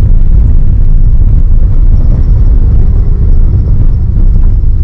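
Loud, steady low rumble of a vehicle driving on a rough road freshly laid with crushed stone.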